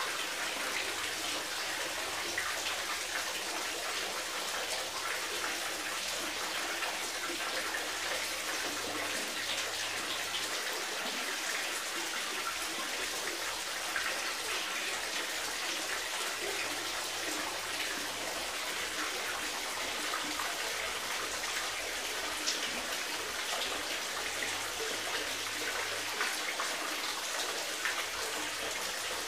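A steady stream of water pouring into a fish tank, a continuous splashing and trickling at the surface.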